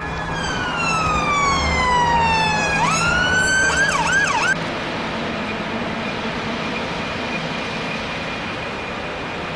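Emergency vehicle siren: one long falling wail, then a few quick rising yelps, cutting off about four and a half seconds in. A steady background hiss follows.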